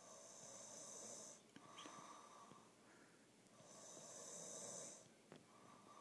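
A sleeper snoring softly: two long snores about three seconds apart, with a fainter breath between them.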